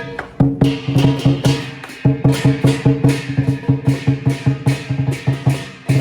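Lion dance drumming: a large Chinese drum beaten in a fast, steady rhythm of about four to five strokes a second, with cymbals ringing on the beats. The beat breaks off briefly about two seconds in, then carries on.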